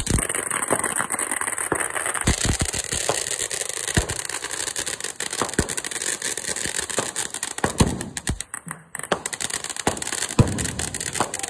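TNT Living the Dream 500g firework fountain burning: a steady hiss with dense crackling and several louder pops scattered through it.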